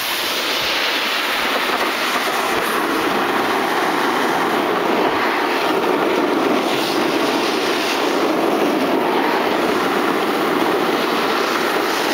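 Snowboard scraping and chattering over packed snow while riding downhill: a steady, rough hiss.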